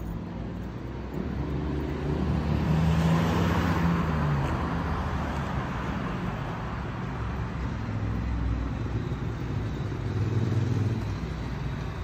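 Cars passing on the road: tyre and engine noise swells about three seconds in, the engine note dropping as the car goes by, and another engine hum rises and fades around ten seconds in.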